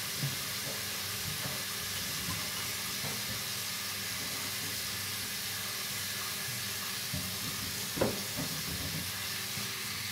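Kitchen tap running steadily into a stainless steel sink, the water hissing and splashing as a sponge works in the stream. One sharp knock about eight seconds in.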